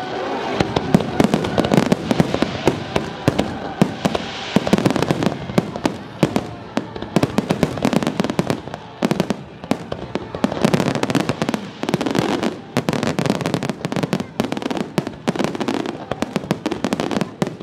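Fireworks display: a dense, continuous barrage of aerial shells bursting, a rapid stream of bangs and crackles with many overlapping at once.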